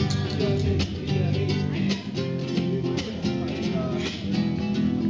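Nylon-string classical guitar strumming chords in a quick, even rhythm.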